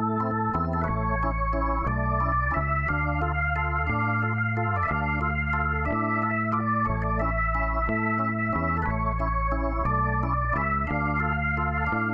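Background music: organ-like keyboard playing sustained chords that change about once a second over a bass line.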